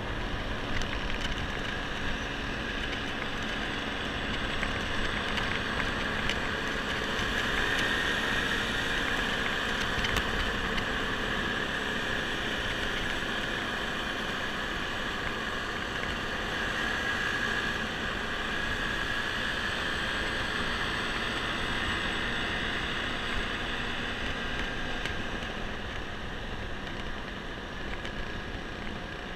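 Onboard sound of a Honda scooter cruising at a steady speed: an even engine drone mixed with road and wind noise.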